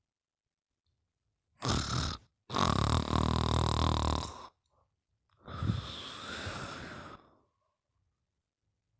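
Snoring in three breaths: a short snore, then a longer, louder one with a coarse low rattle, then a softer one near the end.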